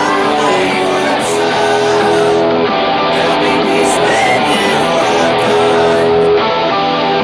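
Loud background music with held, changing notes.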